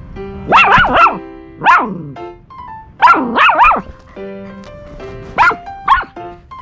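Dogs playing, with high-pitched barks and yips in short clusters, each bark rising and falling in pitch. Background music plays underneath.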